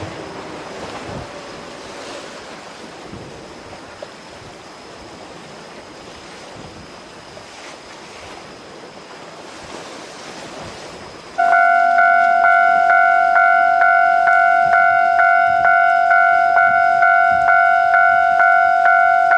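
Steady rushing of wind and surf, then about eleven seconds in a Japanese railway level-crossing alarm starts up suddenly, ringing loudly at about two dings a second to warn of an approaching train.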